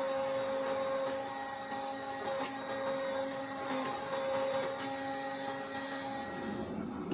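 Hydraulic forging press humming steadily as its pump runs while squeezing a hot bolt-filled canister billet; near the end the hum gives way to a lower, rougher noise.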